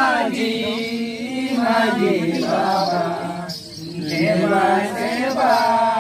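A voice chanting a ritual invocation in a drawn-out, sung recitation, pausing briefly a little past halfway.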